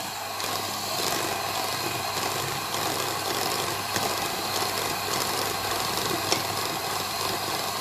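Electric hand mixer running steadily, its twin beaters whipping sugar into thick hung yogurt in a stainless steel bowl.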